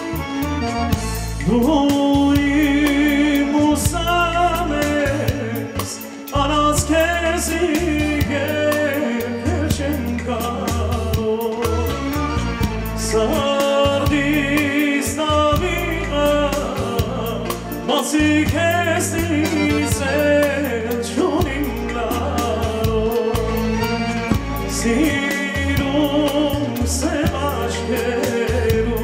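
Male vocalist singing an Armenian song into a microphone, backed by a live band of accordion, clarinet, frame drum and a Roland Fantom X6 keyboard, with a steady beat.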